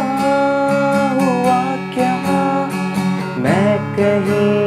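Acoustic guitar strummed steadily, with a man's voice singing long held notes over it. A new sung phrase begins about three and a half seconds in.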